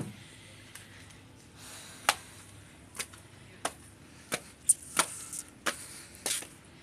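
Knife chopping on a cutting board: about ten sharp knocks at an uneven pace, closer together in the second half.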